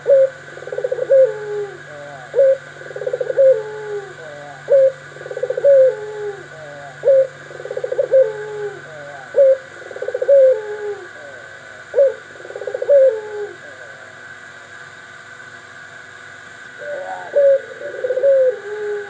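Doves cooing, the 'pelung' birds kept for their voice: a run of rhythmic coos, about one a second, pausing for a few seconds near the end before starting again.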